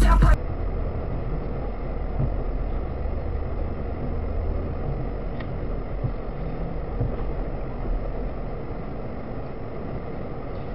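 Loud music cuts off just after the start. Then a steady low rumble of vehicle engine and traffic noise follows, as picked up by a dashcam.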